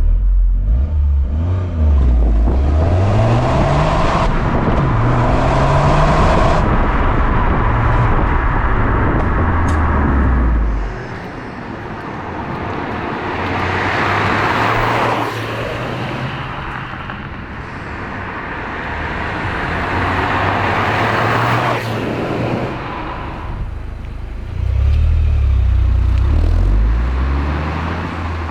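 Toyota GR Yaris's turbocharged 1.6-litre three-cylinder engine running through a Scorpion resonated GPF-back exhaust. Its pitch rises in several pulls over the first six seconds, it drops back and quietens about eleven seconds in, runs steadier, then gets louder again near the end.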